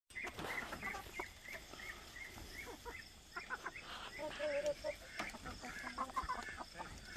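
Hens clucking and chirping, a quick string of short high notes about three a second, then a few longer, lower calls about four seconds in.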